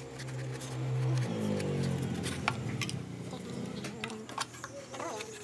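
Light clicks and taps of thin plywood pieces being handled and fitted together, over a low droning hum that swells about a second in and fades out after a few seconds.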